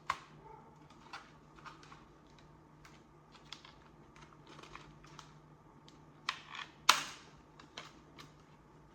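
Light plastic clicks and taps of a small DJI drone being handled and its folding arms worked, scattered through, with the two sharpest clicks about six and seven seconds in.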